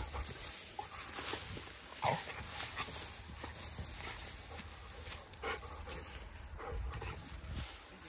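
A hunting dog gives a short, falling whine about two seconds in, with scattered rustling and a low rumble around it.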